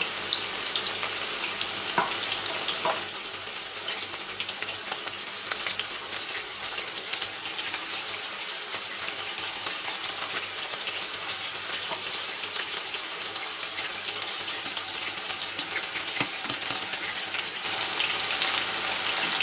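Prawns in a cornflour-and-maida batter deep-frying in hot oil in a kadhai over medium heat: a steady sizzle with fine crackling pops.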